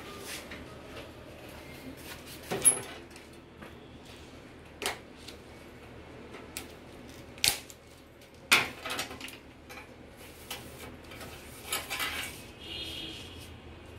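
Irregular clicks, taps and clatter of tools and small hard parts being handled while working inside an LED TV, with several sharp knocks, a brief rustle and a short squeak near the end.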